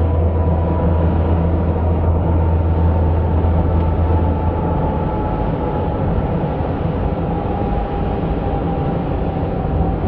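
Steady in-cab road noise from a 2017 Honda Ridgeline cruising on a slushy, snow-covered highway: tyre rumble and engine drone, with a deep hum that eases about halfway through.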